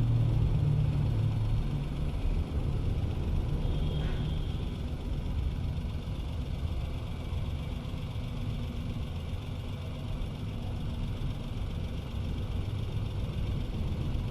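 Maruti Suzuki Wagon R K-series petrol engine idling steadily, a little louder for the first few seconds. The engine has a misfire that the mechanic traces to one weak cylinder. A brief high squeak comes about four seconds in.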